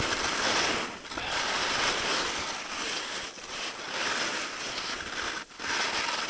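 Skis scraping across hard, icy snow on a steep slope, a steady hiss broken by brief lulls about a second, three seconds and five and a half seconds in as the skier links turns. The snow is still firm, only a little softened by the sun.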